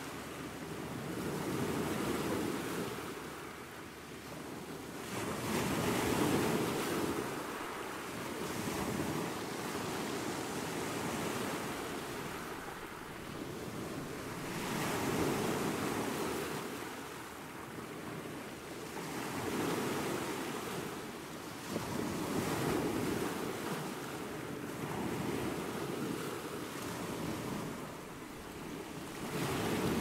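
Ocean waves breaking and washing up on a sandy beach, the rush of surf swelling and fading every few seconds.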